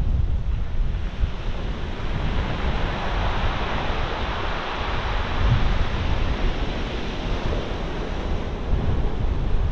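Surf breaking steadily on a shingle beach, swelling about three seconds in, with wind rumbling on the microphone.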